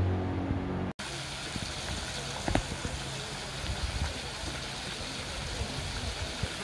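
Neretva river water flowing steadily past rocks, with faint distant voices of people. A music track cuts off abruptly about a second in.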